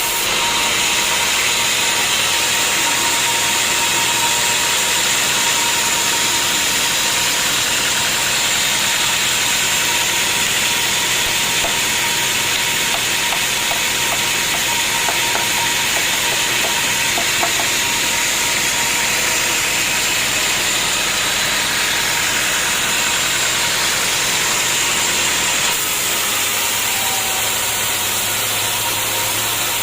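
Sawmill machinery running steadily: a loud, even hiss with a steady whine, changing abruptly near the end.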